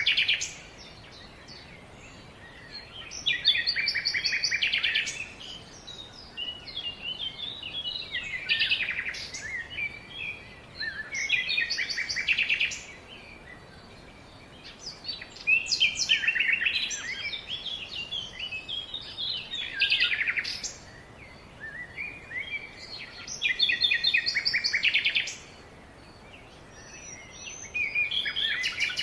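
Songbirds singing: a phrase of rapid trilled and chirping notes about every three to four seconds, each lasting one to two seconds, with short quieter gaps between.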